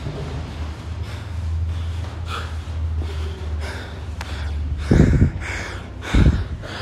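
Heavy, rapid panting breaths close to the microphone, from a person winded by a hard workout. Two loud thumps come about five and six seconds in.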